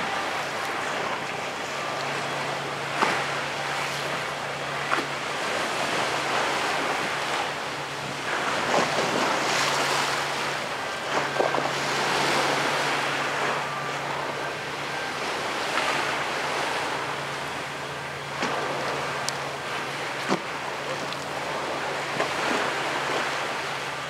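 Wind and choppy sea water, with a steady low hum from the passing Wightlink car ferry St Clare. A few sharp knocks stand out, the loudest about three seconds and eleven seconds in.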